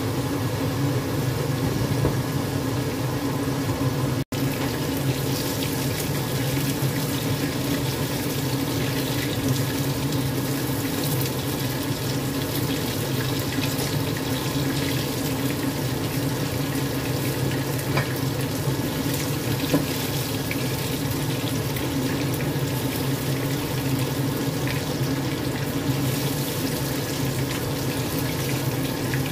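Chicken pieces deep-frying in hot oil in a wok: a steady sizzle with occasional small pops, over a steady low hum.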